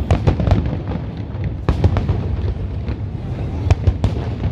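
Fireworks shells bursting: irregular sharp cracks, several in quick pairs and clusters, over a continuous low rumble from the display.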